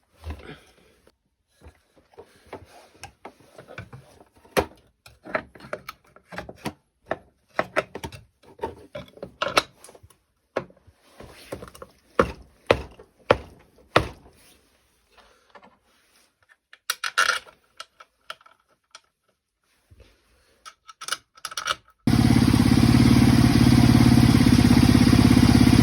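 Irregular clicks, knocks and scrapes of hand work. About 22 seconds in, an engine fitted with a new hydraulic tensioner comes in running loudly and steadily.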